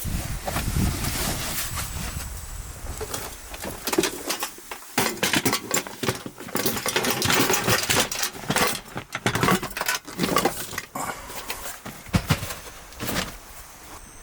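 Camping gear being handled and packed away: an irregular run of knocks, clatters and rustling, with a few sharper clacks.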